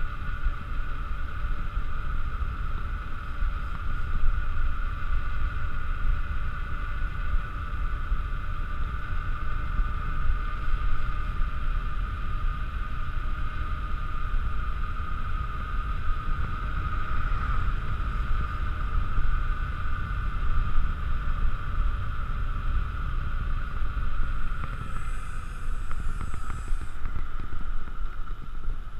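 Mountain bike coasting fast down asphalt: wind rushing over the microphone with a low rumble, and a steady high whirr from the rolling wheels.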